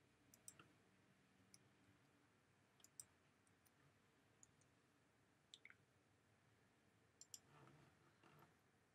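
Near silence broken by a dozen or so faint, irregular clicks of a computer mouse and keyboard.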